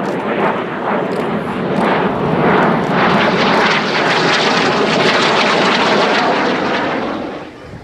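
Folland Gnat T.1 jet trainer making a close, low pass, its Bristol Siddeley Orpheus turbojet a loud rushing noise. The noise builds to its loudest about three seconds in, holds, then drops away sharply near the end as the jet passes.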